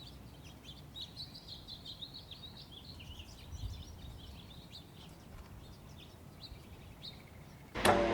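Small birds chirping rapidly and continuously over a faint low background rumble.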